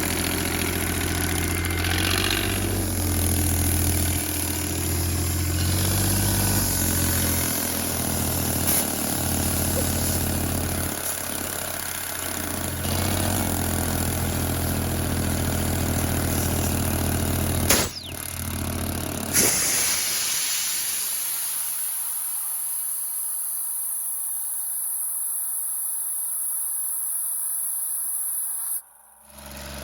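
Portable air compressor's engine running steadily, then shutting down about two-thirds of the way through, its low hum dying away over a couple of seconds. A steady hiss is left behind and cuts off abruptly near the end.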